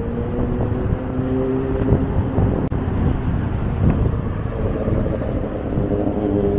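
Street traffic: a vehicle's engine or motor hum rises slowly in pitch as it accelerates, over a steady road rumble. A second rise starts near the end.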